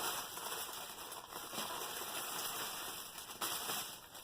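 Small plastic bags of diamond-painting drills rustling and crinkling as they are handled.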